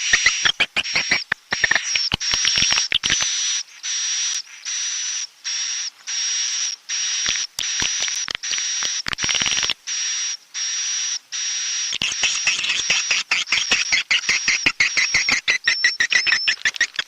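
Edible-nest swiftlet roosting calls: fast, buzzy twittering chirps with a thin high whistle running over them. From about 3 s to 12 s they come as a regular run of separate buzzy calls, roughly two a second with short gaps, then go back to denser chattering.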